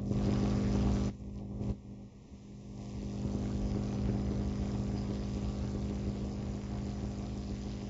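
Steady low hum with a rushing noise. It is louder for about the first second, dips around two seconds in, then swells back and holds steady.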